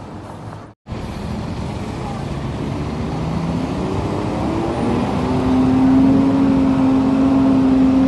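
Bus and road noise growing louder, then a bus horn sounding one long, steady note from about five seconds in. The sound cuts out briefly just before the first second.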